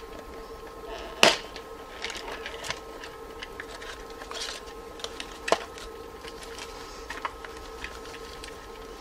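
Handling noise of a paper sheet and a clear plastic parts box: a few sharp clicks and taps, the loudest about a second in, over a faint steady hum.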